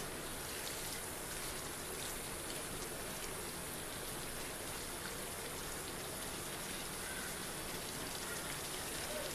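Prawns cooking in a spiced onion gravy in a pan, sizzling and bubbling steadily with a fine crackle.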